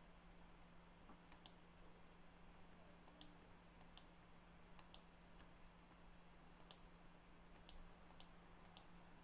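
Faint clicks of a computer mouse, about eight spread through, several as quick double clicks, over a low steady electrical hum.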